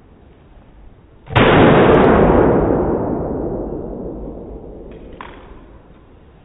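A single pistol shot about a second in, followed by a long fading wash of sound that dies away over several seconds.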